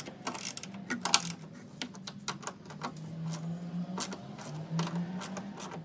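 Ratcheting wrench clicking in quick runs as the front strut's top-mount nuts are loosened on the strut tower, over a faint low steady hum.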